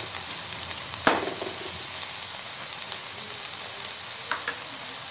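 Onion, red bell pepper and green chili sizzling steadily in oil in a ridged grill pan while a wooden spatula stirs them, with one sharp knock against the pan about a second in.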